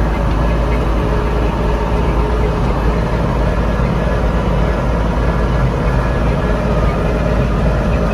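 A heavy engine running steadily at a constant speed.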